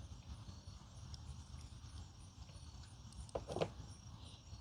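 Quiet small handling noises of hand work on a cable, with a couple of light knocks about three and a half seconds in, over a low steady background rumble.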